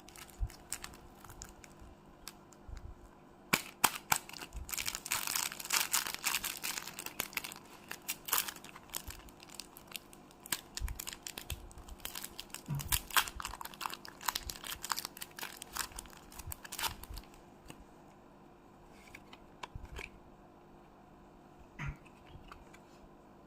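Packaging of Pokémon cards being torn open and crinkled, with many sharp crackles and rustles. It dies down about 17 seconds in to a few scattered clicks and taps from handling.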